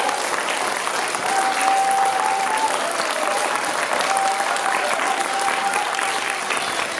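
Audience applauding steadily after a live performance, with a few long held tones sounding over the clapping, about a second in and again around four seconds.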